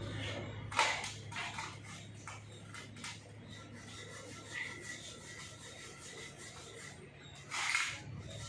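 A small stick scraping and rubbing adhesive around a metal ring set in an engine cylinder head, in a few short strokes, the loudest about a second in and another near the end.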